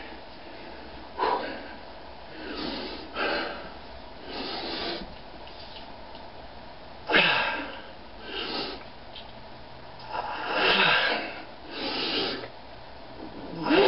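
A man's forceful, noisy breathing: about eight hard puffs and huffs at uneven intervals, the heavy breathing of someone straining to bend a steel nail by hand.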